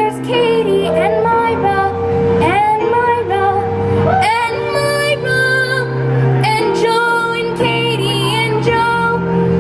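A young female singer performing a musical-theatre song over instrumental accompaniment, her voice sliding up into and holding sustained notes.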